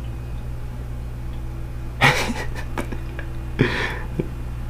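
Two short, breathy laughs from a man, about two seconds in and again a second and a half later, over a steady low hum.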